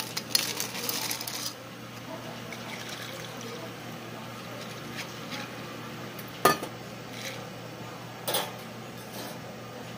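Water poured from a stainless steel pitcher over ice cubes in glass mugs, with ice crackling and clinking; the pour is loudest in the first second and a half. Later come two sharp clinks of glass, about six and a half and eight seconds in.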